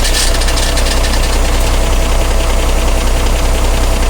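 Vehicle engine and transmission running steadily with a rapid clatter and a thin steady whine over a low rumble: an abnormal noise taken for a transmission fault.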